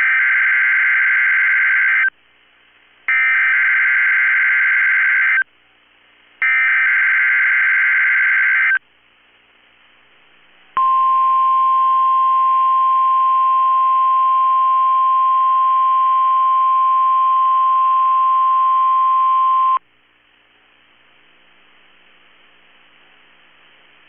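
NOAA Weather Radio Emergency Alert System test signal. It opens with three bursts of SAME digital header data, each about two seconds long and a second apart. After a short gap comes the weather radio's steady one-pitch alert tone, held for about nine seconds.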